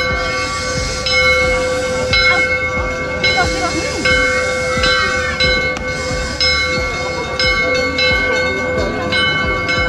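Temple bells struck again and again, a fresh strike about once a second, their clear tones ringing on and overlapping.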